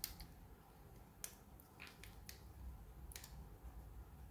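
Faint small plastic clicks and ticks from a mobile phone being taken apart by hand, about five of them spaced irregularly over a few seconds.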